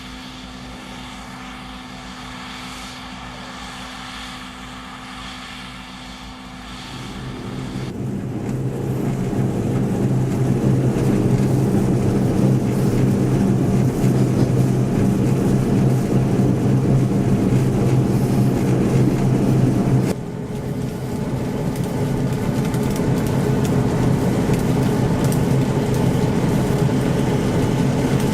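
John Deere 1075 combine harvester running steadily, its engine and threshing machinery making a continuous hum with several held tones. The sound grows much louder over a few seconds about a third of the way in and drops suddenly about two-thirds in.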